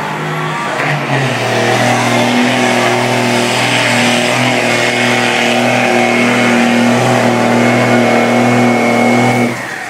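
Diesel 4x4 pickup engine held at high revs under heavy load, pulling the weight-transfer sled in a truck pull. The engine note is steady, drops in pitch about a second in, and cuts off sharply near the end.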